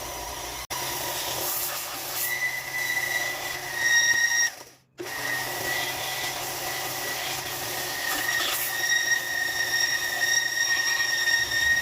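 Electric power sander running against wood, a steady high whine with grinding noise as it rounds the edge of a wooden piece. The sound cuts out briefly a little before halfway and then resumes.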